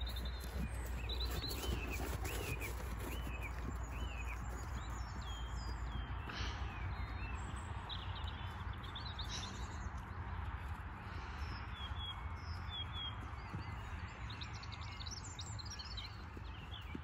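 Small birds chirping and singing all through, over a steady low wind rumble, with the faint dull hoofbeats of a horse cantering on grass.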